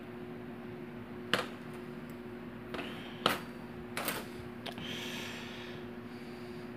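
Small metal lock pins being handled and set down: three sharp clicks and a few lighter ones, spaced irregularly, over a steady low hum.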